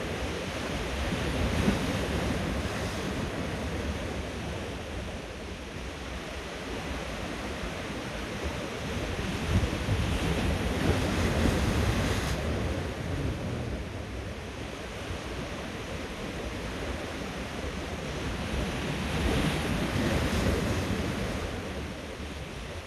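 Sea swell breaking and washing over shoreline rocks, surging louder about three times as the waves come in and draining back between them.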